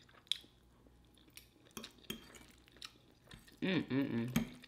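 Eating at a table: scattered light clicks of cutlery against a plate and chewing. About three and a half seconds in, a voice sounds for about a second without words.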